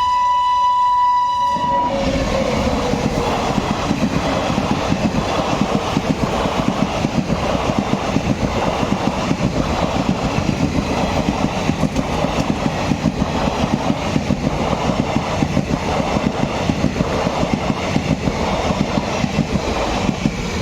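Train horn sounding a steady note that cuts off about two seconds in, a lower tone sliding down in pitch just after. The train then rolls through with its wheels clattering over the rail joints in a fast, even rhythm.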